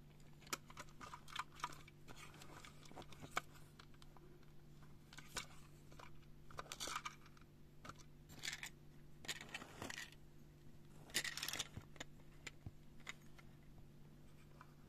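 Scattered small clicks, taps and brief rattling scrapes of a toy model car being handled, turned over and set down, over a faint steady hum.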